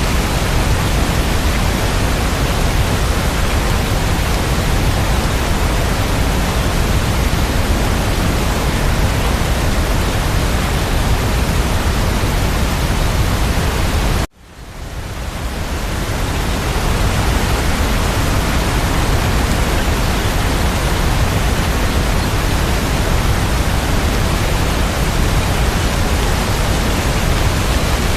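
Steady, even rain noise with no separate drops. About halfway through it cuts out suddenly and fades back up over a couple of seconds, where the recording loops.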